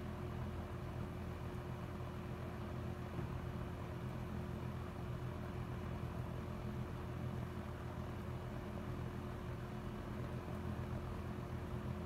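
1980s Lakewood Model 223 box fan running on medium speed: a steady motor hum with the even rush of air from the blades.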